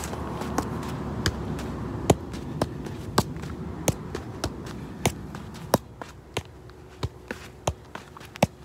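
Size 4 football being juggled on the feet: a steady run of dull kicks, about three every two seconds, as the ball is kept in the air.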